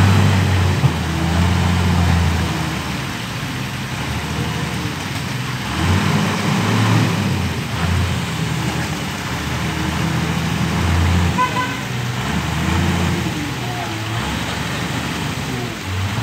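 Wheel loader's diesel engine running, its note swelling and easing as it works. A short horn beep comes about eleven seconds in.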